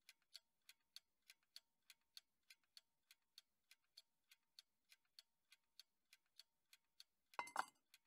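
Wall clock ticking, about three even ticks a second, with one short louder noise near the end.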